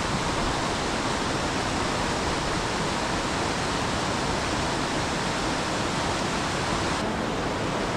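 A mountain river rushing by, a steady even wash of flowing water with no letup. Near the end its hiss dulls slightly.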